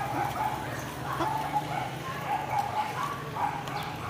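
Small dogs yipping and whining in a string of short calls, over a steady low hum.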